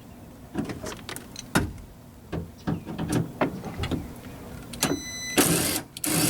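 Small metal clicks and knocks of a Torx bit being fitted into the door, then near the end a cordless drill/driver whirs briefly twice, backing out the T27 Torx screws that hold the rear door handle.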